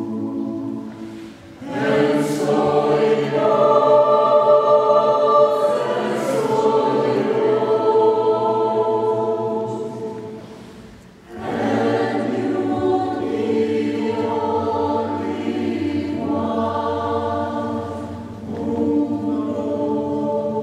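Mixed choir of men's and women's voices singing held chords in long phrases, breaking off briefly about one and a half seconds in and again near eleven seconds in.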